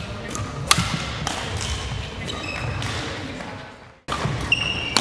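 Badminton play on a wooden sports-hall court: a few sharp racket hits on the shuttlecock in the first couple of seconds, trainers squeaking on the floor and footsteps thudding. The sound cuts out briefly about four seconds in.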